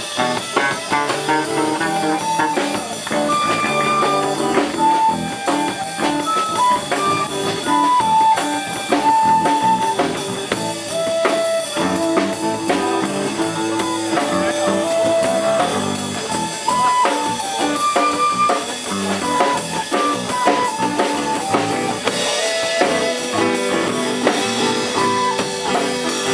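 Live band playing an instrumental passage: a flute carries the melody in held and moving notes over acoustic guitar, bass guitar and a drum kit.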